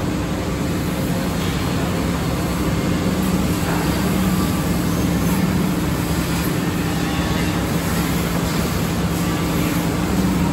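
Woodmaster four-axis CNC mortise-and-tenon milling machine running, its spindle motors giving a steady hum.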